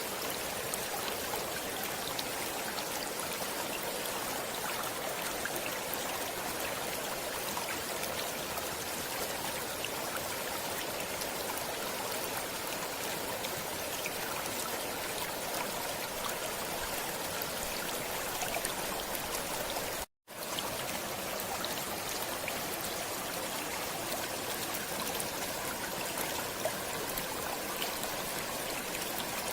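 Stream water flowing steadily, an even rushing wash with small splashes through it, and a momentary dead-silent gap about twenty seconds in.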